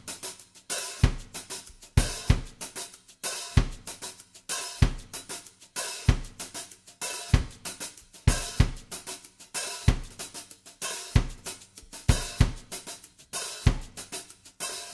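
Background music led by a drum kit: a steady beat with a kick drum about every second and a quarter, and hi-hat and cymbal hits between.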